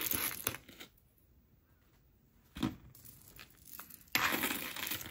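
Jewelry and its packaging being handled: crinkling rustles at the start and again near the end, with one small sharp clink about two and a half seconds in, as a piece is set down.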